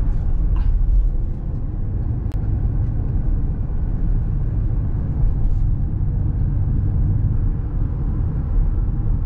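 Steady low road-and-engine rumble inside the cabin of a moving Toyota car, with a few faint ticks and rattles over it.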